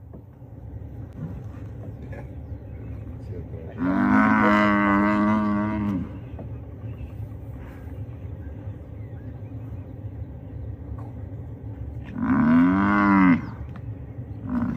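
African buffalo bellowing twice, each a loud, drawn-out moo of one to two seconds, the second rising and then falling in pitch, over a steady low rumble.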